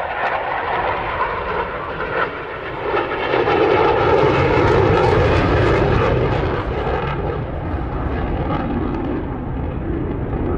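Jet noise from a Panavia Tornado's twin RB199 turbofan engines as it flies past overhead. The steady rush swells to its loudest about four to six seconds in, then eases a little as the jet moves away.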